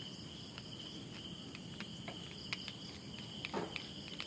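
Steady high-pitched insect chirring, with a few light metallic clicks as a two-jaw puller is handled around an armature's commutator; the loudest click comes about three and a half seconds in.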